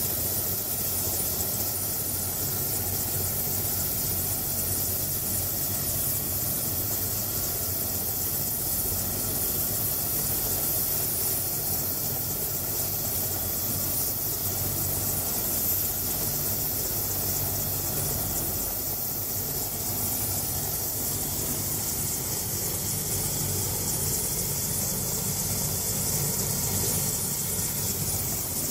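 Bell 407 helicopter's Rolls-Royce 250 turboshaft engine running at ground idle with the rotor turning, a steady high turbine whine over a low rumble, while the helicopter warms up on the pad before lift-off.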